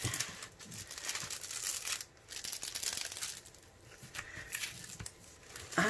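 Clear plastic cellophane cover crinkling and crackling as hands press and smooth it flat over a diamond painting canvas, in stops and starts.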